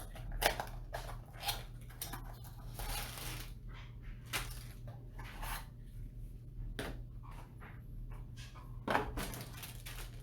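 Irregular clicks, knocks and rustles from handling the PC case's small accessory box of screws, with a steady low hum underneath.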